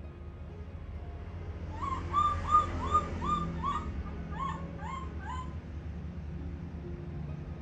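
A baby monkey's short, high-pitched cries: about nine in quick succession, roughly three a second, with a brief pause before the last three.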